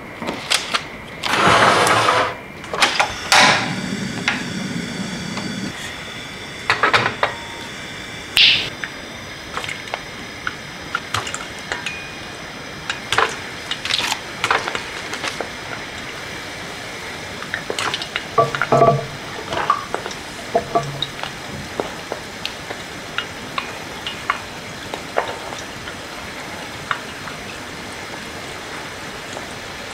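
Churros deep-frying in hot oil: a steady sizzle with scattered crackles and pops. A few louder bursts and knocks come in the first few seconds.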